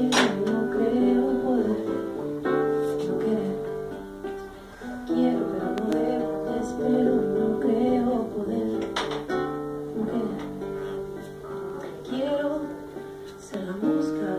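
Acoustic guitar played live, chords strummed and picked in an instrumental passage of a song, with sharp strums near the start and about nine seconds in.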